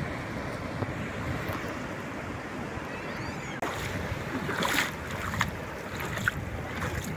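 Calm sea waves washing onto the shore, with wind on the microphone. The sound cuts out for an instant about halfway through.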